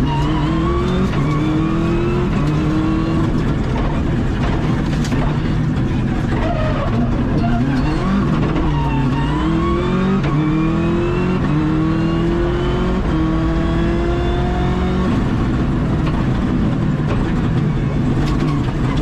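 Rally car engine heard from inside the cockpit, accelerating hard through the gears with quick upshifts. It drops under braking and a downshift about eight seconds in, then pulls up through several gears again before easing off near the end.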